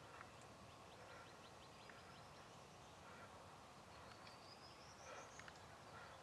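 Faint wild songbird calls over quiet outdoor background: a quick series of short high chirps rising in pitch, then a high rising trill about four seconds in.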